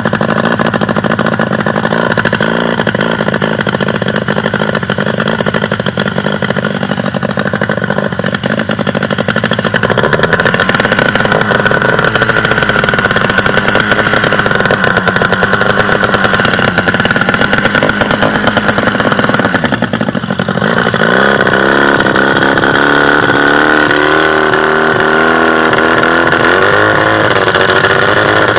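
700cc two-stroke boat engine running hard under way, loud and steady. About two-thirds of the way through it briefly drops off, then picks up again with its pitch wavering up and down.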